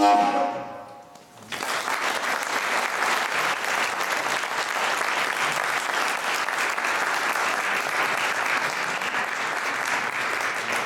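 The last note of a fujara dies away, and about a second and a half in an audience breaks into steady applause.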